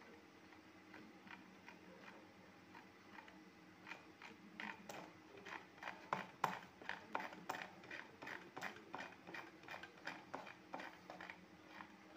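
A run of faint light taps, about three a second, starting about four seconds in and stopping near the end, loudest in the middle, over a low steady hum.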